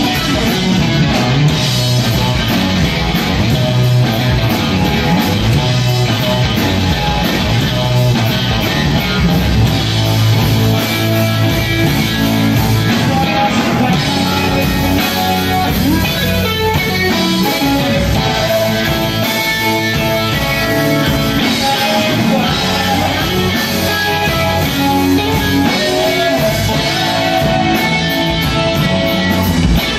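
A live rock band playing loudly and continuously: electric guitars over a drum kit, without vocals.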